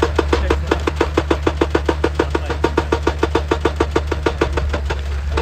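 Excavator-mounted hydraulic rock breaker hammering rock in a fast, even rattle of about nine blows a second, over the steady drone of the machine's diesel engine. The blows weaken briefly near the end, then pick up again.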